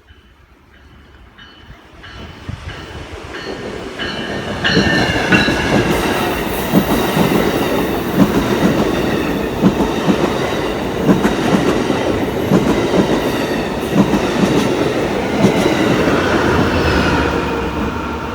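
A train approaching and passing close by, building from faint to loud over the first few seconds. The wheels knock rhythmically over the rail joints, with steady high-pitched squealing from the wheels on top.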